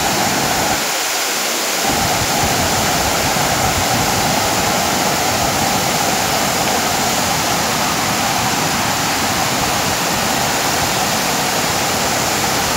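Floodwater pouring over an overflowing dam's spillway in a steady, unbroken rush.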